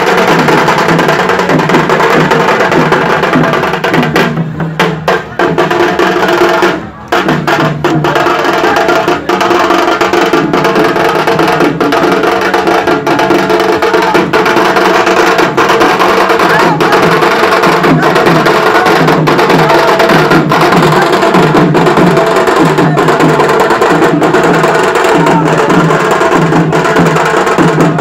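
Loud DJ dance music with a fast, heavy percussion beat. It thins out briefly around four to five seconds in and cuts out for a moment about seven seconds in before the beat comes back.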